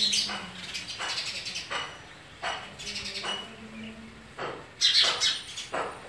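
Sparrows chirping in repeated quick clusters of short high calls, loudest about five seconds in. A faint low drawn-out note sounds underneath about three seconds in.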